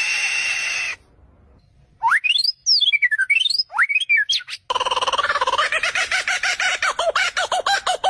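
Bird calls in three parts: a held high whistle that stops after about a second, then quick whistled notes sweeping up and down, then a fast run of repeated chattering notes about a dozen a second.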